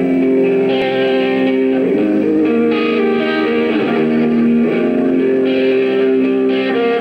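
A rock band playing live, led by electric guitars, with held chords changing every second or so.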